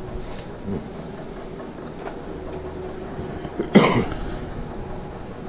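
Steady indoor background hum, with one short, loud noise about four seconds in.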